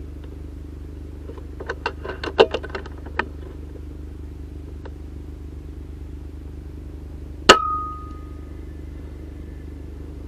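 A quick run of about ten light metallic clicks, then some five seconds later a single sharp shot from an FX Impact M3 PCP air rifle firing a slug, with a brief ringing tone after the crack. A steady low hum lies underneath.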